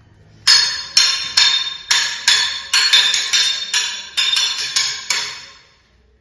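Metal blades clashing in a Kalaripayattu weapons bout: about a dozen sharp ringing clangs, roughly two to three a second, starting about half a second in and stopping a little after five seconds.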